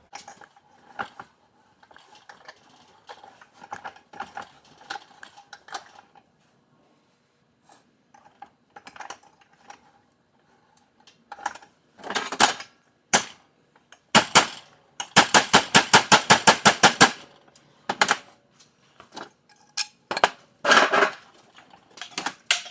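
Metal-on-metal knocking and clanking from crimping a metal exhaust tip to fit around an exhaust pipe: scattered light taps and clinks, then heavier knocks, and partway through a quick run of about eight strikes a second lasting about two seconds.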